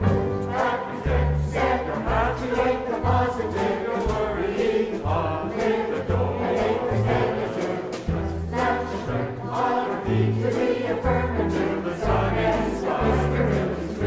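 A large mixed choir singing a swing jazz standard with a jazz combo: piano, double bass playing a line of short low notes, and drums with regular cymbal strokes.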